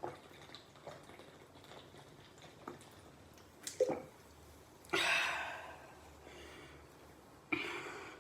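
A person drinking soda: small sips, swallows and liquid clicks, then two loud breathy rushes of air, one about halfway through that trails off over about a second and a shorter one near the end.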